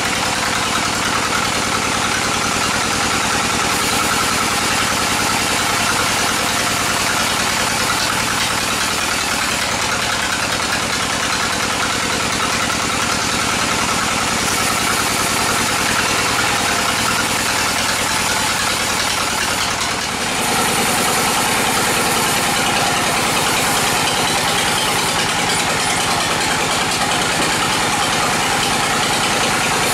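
Sawmill bandsaw running while bayur timber is fed through it: a loud, steady machine drone with an even high whine. The sound shifts abruptly about two-thirds of the way in.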